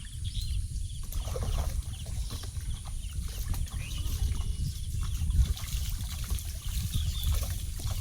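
Water sloshing and splashing in a shallow canal, with many small knocks and clicks over a steady low rumble, and faint bird chirps.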